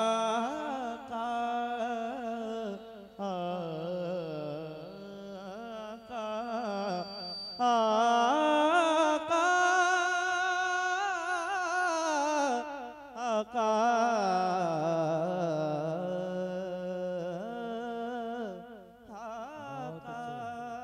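A man singing a naat in long drawn-out notes, his voice wavering and gliding in pitch.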